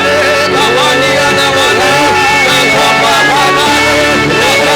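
Live praise music from a church band: a melody that slides up and down in arches over held chords.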